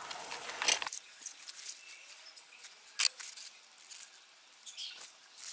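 Scattered light clicks and rustles of a hand tool and gloved hand working under a scooter's engine during an oil change, with one sharp metallic click about three seconds in.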